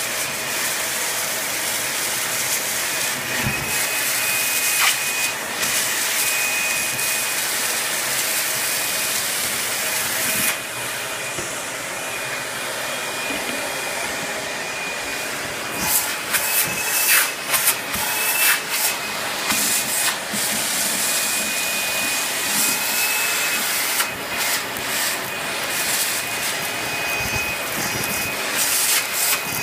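Upright carpet vacuum cleaner running with a steady high whine over its motor noise, pushed back and forth over carpet, with uneven surges and clicks in the second half.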